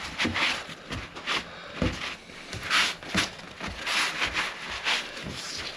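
Excess wood glue being wiped off a freshly clamped glue joint: repeated rubbing strokes across the wood, with a few light knocks in between.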